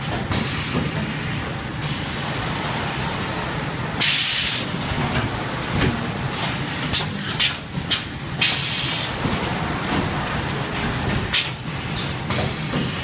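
Automatic high-frequency PVC welding machine running with a steady low hum, broken by sharp bursts of air hiss from its pneumatic cylinders. There is one longer hiss a third of the way in, a quick run of four short ones past the middle, and another near the end.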